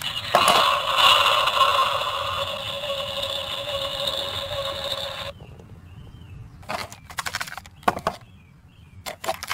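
Dinoco Lightning McQueen Shake 'n Go toy car playing its electronic engine-revving sound through its small speaker, thin and steady for about five seconds before cutting off abruptly. A few short clicks and clatters follow as the car moves along the board.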